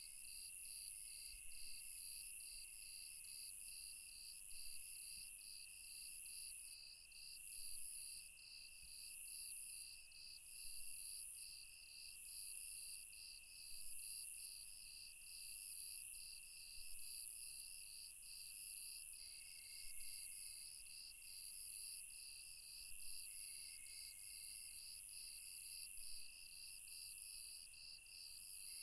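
Night insect chorus of crickets: a high chirp pulsing about twice a second over a steady high trill, with a second, lower trill that drops in and out.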